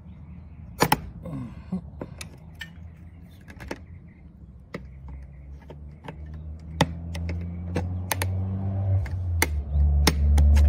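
Thin putty knife clicking and scraping against the aluminium frame and track of a sliding screen door as it levers the door's wheel into the track: a string of sharp metal clicks. A low hum swells from about halfway and is loudest at the end.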